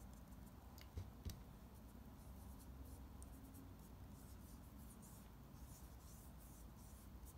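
Faint rubbing of fingertips on facial skin as powder highlighter is blended in, with two light taps about a second in.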